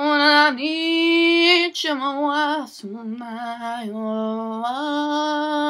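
A young woman singing without accompaniment, holding long notes with vibrato. The pitch drops to a lower note near the middle and rises back near the end.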